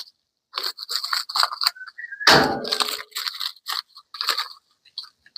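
Plastic packaging crinkling and scraping in short irregular bursts as it is cut and pulled open with scissors, with one louder, fuller rustle and bump about two and a half seconds in.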